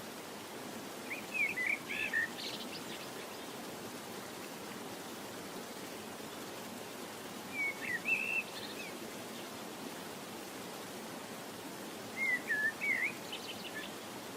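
A small bird singing three short, quick warbled phrases about five seconds apart, over a steady background hiss.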